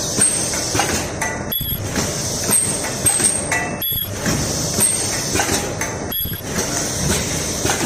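Ultrasonic plastic welding machine cycling through welds: short high-pitched squeals recur every second or two over a steady high hiss and machine noise, and the sound breaks off abruptly a few times.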